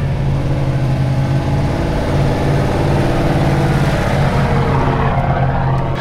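Chevrolet Silverado ZR2 pickup's engine working hard under load as it tows a trailer up a steep sandy hill: a steady, loud drone that eases off slightly near the end.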